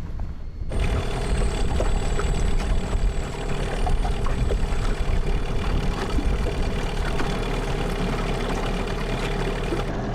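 Boat's outboard motor running steadily; it cuts in abruptly about a second in.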